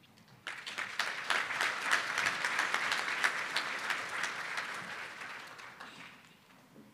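Audience applauding. The clapping starts about half a second in, swells, then dies away over the last couple of seconds.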